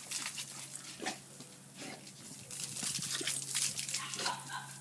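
Golden retriever biting and snapping at a garden hose's stream, with water splashing irregularly on concrete.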